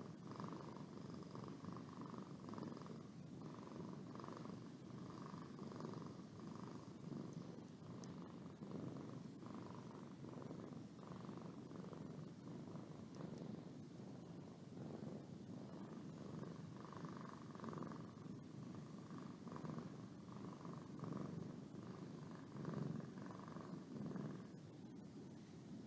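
A domestic cat purring steadily, with a soft regular pulse.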